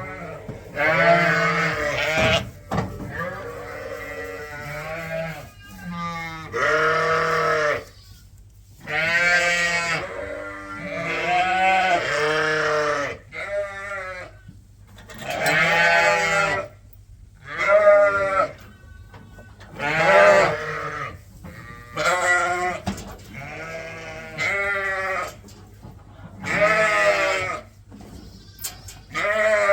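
Sheep bleating over and over: one long, wavering call after another, some overlapping, from several animals in the flock.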